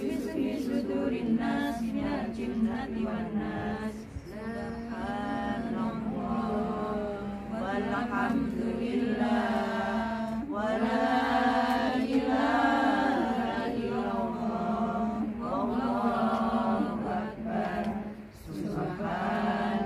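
A group of women chanting an Arabic recitation together in unison, with drawn-out melodic lines over a steady vocal drone, dropping briefly for breath about four seconds in and near the end.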